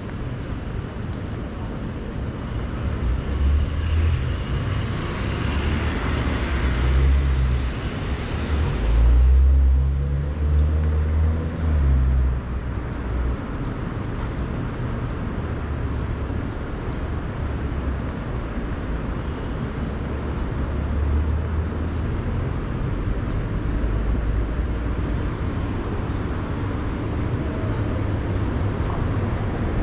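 Street traffic: a car passes, its hiss building over several seconds and cutting off about nine seconds in, over a steady low rumble of city traffic.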